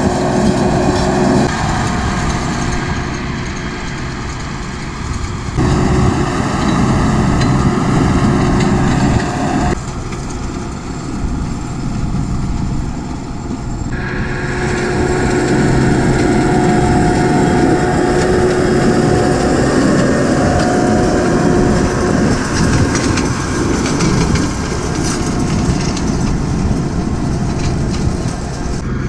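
Farm tractor engine running steadily as it pulls a Claas round baler along windrows of cut ryegrass, the baler's pickup and chamber working. The sound changes abruptly at several points between edited shots.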